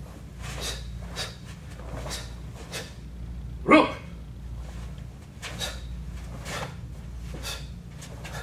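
A single short, loud shout about four seconds in, among quieter brief snaps and rustles of a karate uniform as punches are thrown in a kata.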